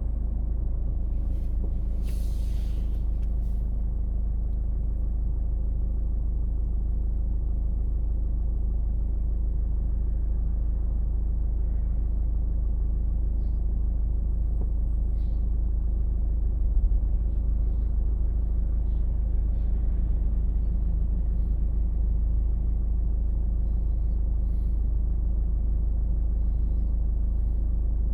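Steady low rumble of a car driving, its engine and tyre noise, with a brief hiss about two seconds in.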